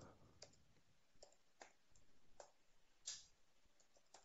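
A few faint, scattered keystrokes on a computer keyboard, with near silence between them.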